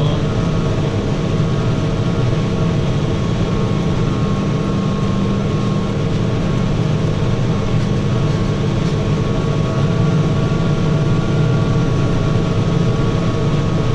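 Tractor engine running steadily under load, a constant drone with a steady whine on top while it pulls a tillage implement across the field.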